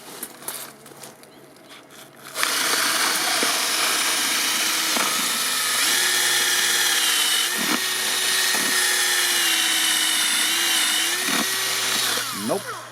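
Power drill boring into wood: it starts abruptly about two seconds in, runs steadily under load with a motor whine for about ten seconds, then winds down with a falling pitch.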